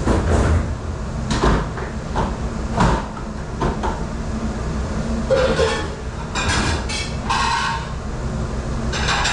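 Dishes and racks knocking and clattering as they are handled, a run of sharp knocks followed by longer rattling clatter, over the steady low hum of commercial dish-room machinery.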